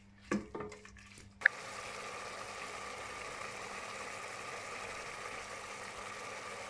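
A couple of light knocks from a wooden spoon in a stainless steel pot, then, after a sharp click about a second and a half in, the onion-and-tomato masala simmering steadily in water in the pot.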